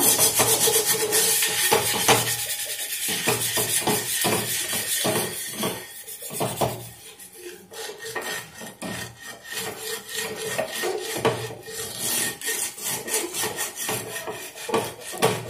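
Coarse white grains, likely salt, ground across an old iron dosa tawa under a half onion: a rapid, gritty back-and-forth scrubbing, louder for the first half and softer after. The scouring is stripping the burnt-on black crust from the pan.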